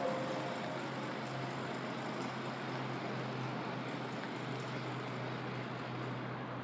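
Steady low engine drone under a wash of outdoor noise.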